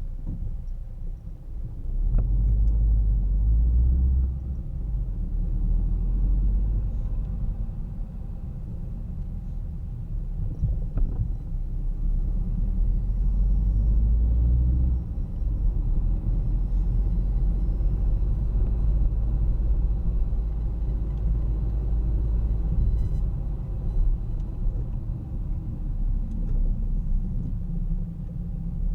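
Car driving through city streets, heard from inside the moving car: a steady low rumble of engine and road noise that swells a little about two seconds in and again around the middle.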